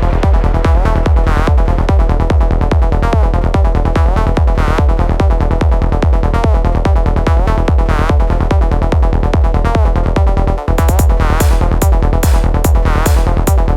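Electronic trance music with a driving four-on-the-floor bass beat and repeating synth sweeps, briefly dropping out about ten and a half seconds in before the beat comes back with brighter hi-hats.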